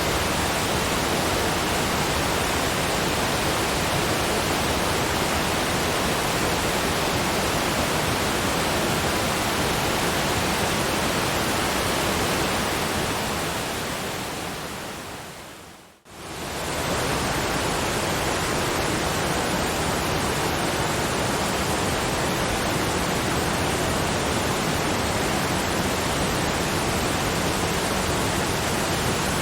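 Waterfall rushing with a steady, even hiss. It fades away over a few seconds to near silence about halfway through, then swells quickly back to full level.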